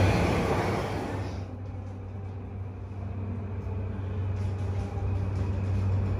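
Loud rushing noise of a passing vehicle that fades away over the first second and a half, leaving a steady low hum with a few faint ticks.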